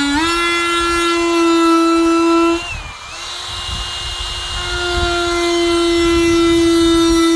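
Die grinder with a Saburrtooth flame bit cutting letters into a wooden sign, running with a steady high whine. Its pitch dips as the bit bites in at the start, and the sound drops out for a moment about three seconds in before it runs on steadily.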